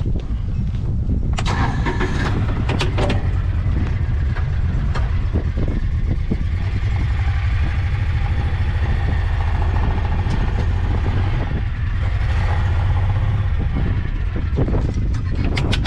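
Kawasaki side-by-side utility vehicle's engine running steadily, with a few rattles and knocks about a second or two in and again near the end.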